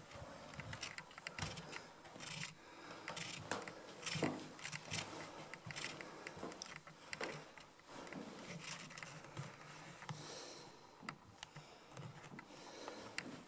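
Footsteps and scuffs on a debris-strewn floor, irregular short knocks and scrapes.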